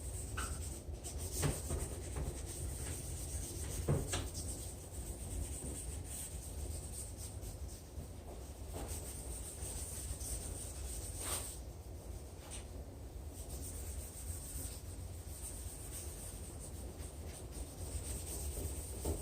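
Hand wet-sanding a plastic car headlight lens with coarse-grit sanding paper: a soft, steady rubbing scrape, with a few louder scuffs now and then.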